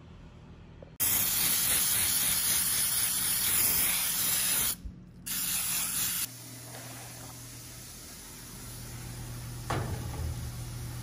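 Aerosol cooking spray hissing into round cake pans: one long spray of about three and a half seconds, then a short one of about a second. A light knock near the end.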